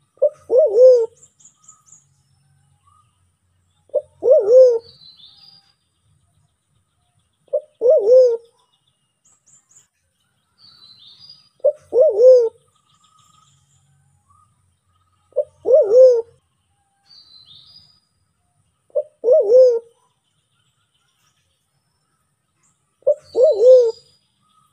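White-faced cuckoo-dove (Sulawesi black pigeon) calling: a low two-part coo, a short note run straight into a longer arched one, repeated seven times about every three and a half to four seconds. Faint high chirps of small birds sound between the coos.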